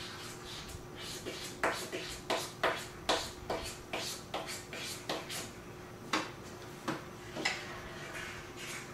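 Markers scribbling on paper: a run of short scratchy strokes, about two a second, starting after about a second and a half and thinning out near the end, over a faint steady hum.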